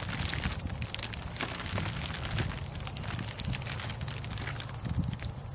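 Thin plastic bag of live golden shiners in water crinkling and crackling as it is handled, a dense run of small crackles over a low rumble.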